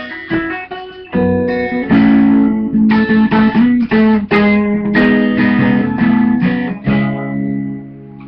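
Guitar strumming the closing chords of a song, a stroke about every half second, then a final chord ringing and fading out near the end.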